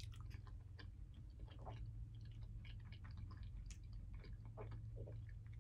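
A person quietly chewing a forkful of food: faint, irregular soft mouth clicks over a steady low hum.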